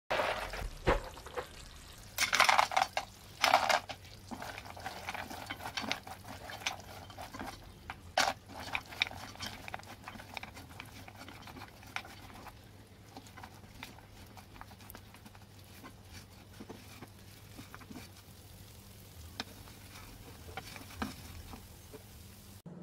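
A spatula stirring and scraping fried shakarpara pieces through hot sugar syrup in a granite-coated pot, with scattered clicks and a light sizzle; louder scrapes come about two and three and a half seconds in. The syrup is being stirred until it dries into a white sugar coating.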